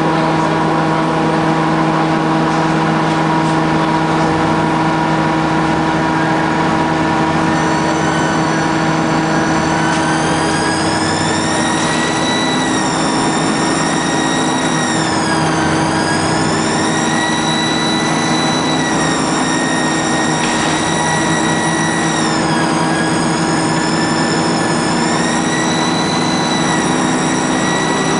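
MTA bus running steadily with a low engine hum, joined about a third of the way in by a high-pitched whine that wavers slowly up and down in pitch: the bus's strange sound.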